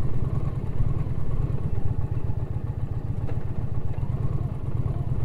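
Indian Challenger's V-twin engine running steadily at low speed, a continuous low pulsing, as the motorcycle rolls slowly along a dirt track.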